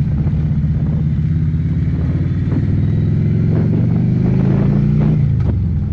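Harley-Davidson motorcycle's V-twin engine running under way, its note rising steadily as it pulls harder, then dropping quickly about five seconds in.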